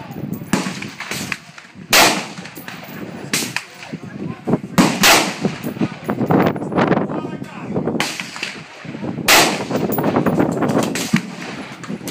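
Gunfire from an AR-15 in 5.56/.223 with a 14.5-inch BCM upper and a Battlecomp compensator, fired as single shots; the loudest shots come about two, five and nine seconds in. Many fainter shots fall between them, and each shot has a short ringing tail.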